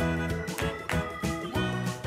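Background music: a light instrumental tune of short, regularly repeating notes.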